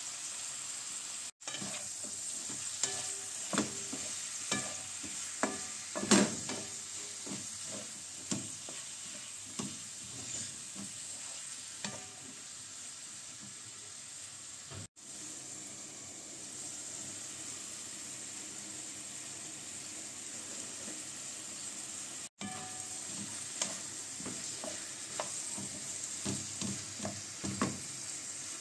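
Sausages and pepper strips sizzling in a black frying pan, with a steady hiss of hot oil. A wooden spatula stirs them, knocking and scraping against the pan, most often in the first half and again near the end.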